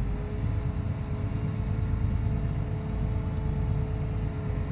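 John Deere 8260R tractor's six-cylinder diesel engine running steadily at low revs, heard from inside the cab, as the tractor moves off. The engine has only partly warmed up after a restart following six months' lay-up.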